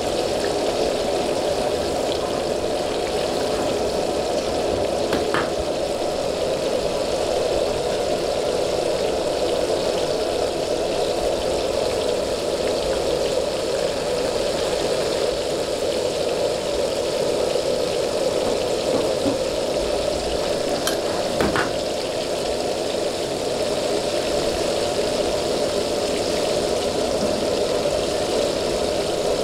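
Battered pork pieces deep-frying in a wok of hot oil: a steady, continuous sizzle and bubbling, over the even rush of the wok's gas burner. Two brief clicks, about five seconds in and about twenty-one seconds in.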